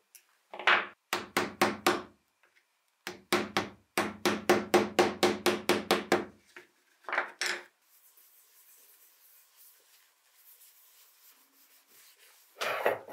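A small hammer taps the wire-wrapped grip of an épée in quick runs of ringing strikes, about five a second, with two more taps a second later. Near the end an abrasive pad starts rubbing on the metal bell guard.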